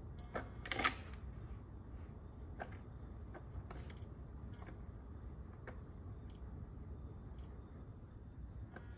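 Short, high bird-like chirps, about six of them spaced irregularly a second or so apart, each a quick downward sweep. A brief, louder scuffle about a second in.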